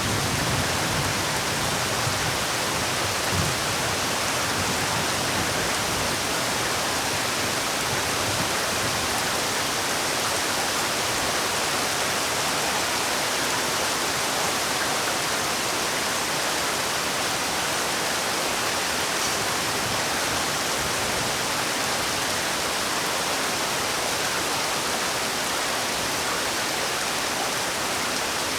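Steady rain falling, a dense even hiss with no distinct drops or changes.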